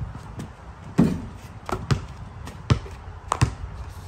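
Balls bouncing on a concrete driveway: about six sharp bounces at uneven intervals, the loudest about a second in.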